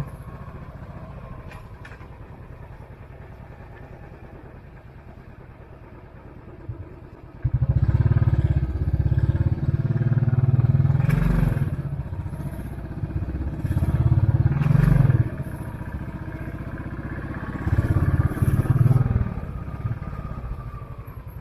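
Royal Enfield Classic 500's 499 cc single-cylinder engine running on the move, steady and fairly quiet at first. About seven seconds in it suddenly gets much louder as the throttle opens, pulling in three loud surges with short dips between, then eases off near the end.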